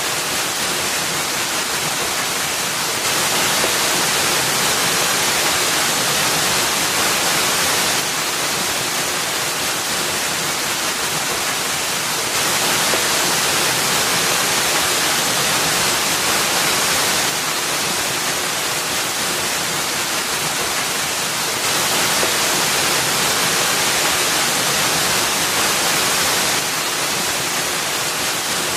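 Waterfall pouring into a pool: a steady, even rush of falling water, its loudness stepping up and down slightly every four to five seconds.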